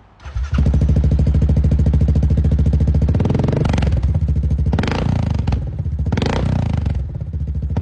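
Yamaha Grizzly 700 ATV's single-cylinder engine fires up just after the start, idles with a loud, fast, even thumping exhaust note, and is revved in three quick throttle blips.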